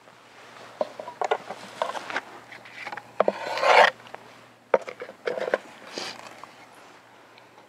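Handling sounds: scraping and rubbing broken by sharp clicks and knocks, loudest as a longer rasping scrape about three and a half seconds in.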